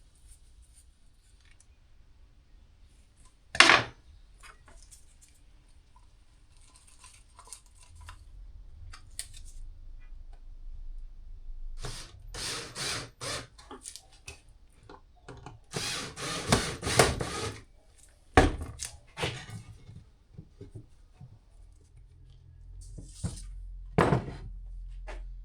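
Wooden step parts and tools being handled during gluing: scattered knocks and clattering, with a sharp wooden knock about four seconds in, bursts of rattling and scraping in the middle, and further sharp knocks near the end.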